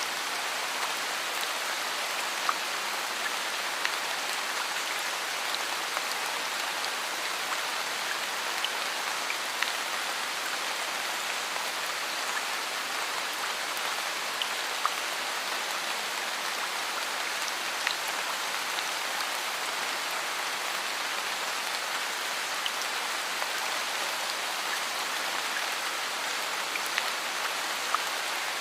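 Steady rain falling, an even hiss with scattered louder drops ticking every second or so.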